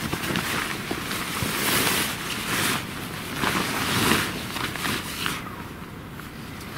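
Nylon tent rain fly rustling in a run of loud bursts as it is lifted and pulled over a dome tent, dying down about five seconds in.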